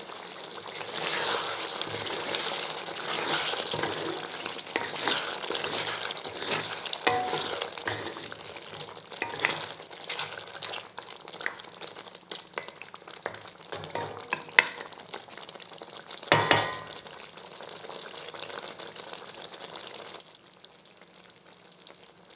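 A spatula stirring a thick mutton and apricot curry in a metal pot, with clicks and scrapes against the pot and the gravy sizzling. There is one louder knock about three quarters of the way through, and the sound dies down near the end.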